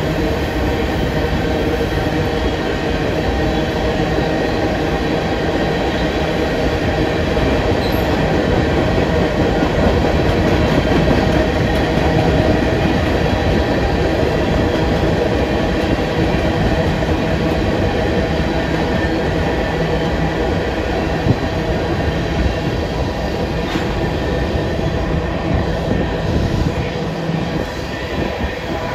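Covered hopper cars of a Union Pacific grain train rolling past, with a steady loud rumble and clatter of steel wheels on rail. A thin steady wheel squeal rides above the rumble.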